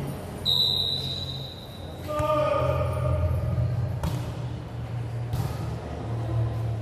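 Referee's whistle blown once, a steady high tone of about a second, signalling the serve. About two seconds later comes the sharp smack of the volleyball being served, then a second hit about a second after as the serve is passed.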